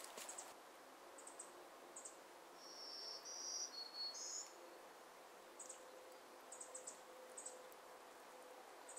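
Quiet forest ambience: short, very high chirps repeating in small clusters, and around three to four seconds in a thin, high whistled phrase of a few held notes from small wild creatures.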